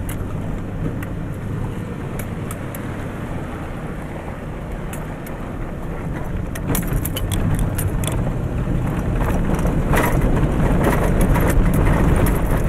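A vehicle's engine running as it drives a rough dirt road, heard from inside, with tyre noise and short rattles and knocks over the bumps. It gets louder about six seconds in.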